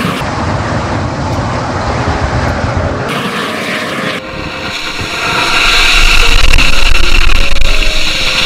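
Homemade sparkler-and-match jet on a toy truck burning with a loud, steady rushing hiss as it runs through shallow water. The sound jumps louder and brighter about four seconds in.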